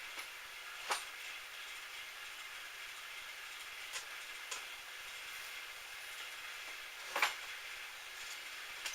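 Small metal lathe running steadily, with sharp clicks about one second in, twice around four seconds in, near seven seconds and at the very end.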